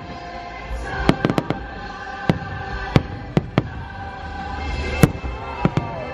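Aerial fireworks bursting overhead in a string of about a dozen sharp bangs and cracks, some in quick clusters. The show's music plays steadily underneath.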